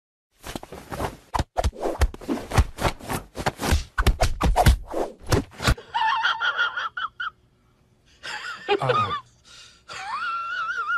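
A hand rapidly patting a plump cat's belly: a quick run of soft slaps for about the first six seconds. After that, a high wavering wail comes in short stretches.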